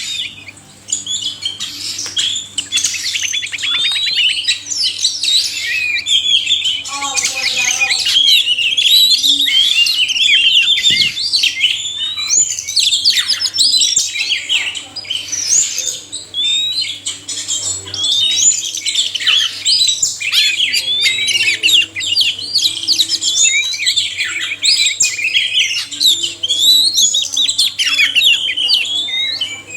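Male and female oriental magpie-robins singing together: a dense, unbroken run of quick varied whistles, trills and chirps.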